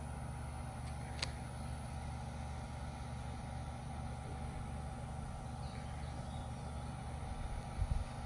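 Steady low machine hum with a faint constant tone above it, a single sharp click about a second in, and a few low bumps near the end.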